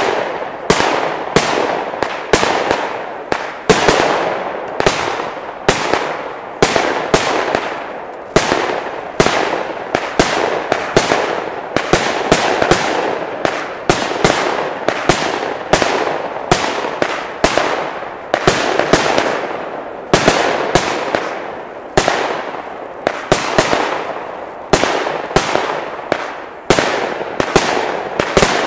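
A 50-shot, 20 mm consumer firework battery (Nico Feuerwerk 'Tornado Fire') firing shot after shot, roughly one or two a second. Each shot is a sharp crack followed by a short decaying tail.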